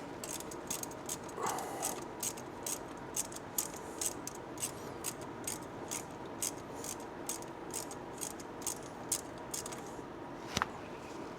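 Hose clamp on a Land Rover 300TDI turbo air hose being loosened with a hand tool: a steady series of small clicks, about two to three a second, with one sharper click near the end.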